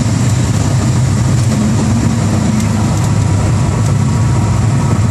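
Cessna 182's piston engine and propeller running steadily, a loud low drone heard from inside the cabin.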